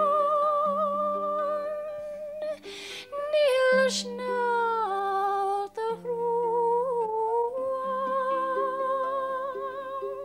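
A woman singing a slow air in long held notes with a gentle vibrato, accompanying herself on a small Irish harp whose plucked low notes ring under the voice. There is a breath about two and a half seconds in.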